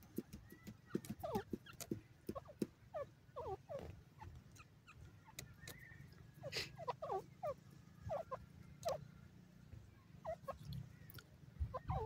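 Francolin giving soft, short clucking calls, quick falling notes in small bunches, with scattered faint clicks between them.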